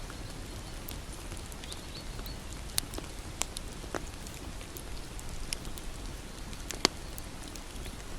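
Wood fire crackling: a steady low hiss with scattered sharp pops and snaps, the loudest pop about seven seconds in.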